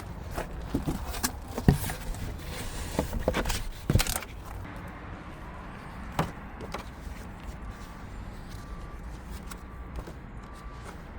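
Several sharp clicks and knocks of handling, the loudest about two and four seconds in, then a run of short, evenly pitched electronic beeps near the end, the kind a diesel heater's control panel gives as its buttons are pressed.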